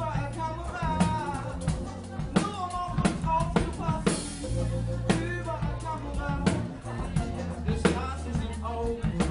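Live hip-hop music: a drum-kit beat with kick and rimshot hits over deep held bass notes, with a bending melodic voice line on top.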